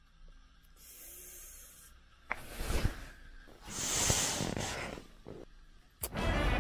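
Close rustling and rubbing against a phone's microphone, fabric and bedding being moved, in a few separate bursts of hiss. Music comes in near the end.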